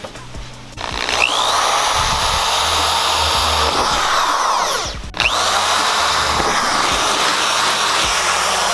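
Electric power drill boring holes in a sheet of aluminum, in two loud, steady runs with a short stop about five seconds in. Each run opens with a rising whine as the drill spins up.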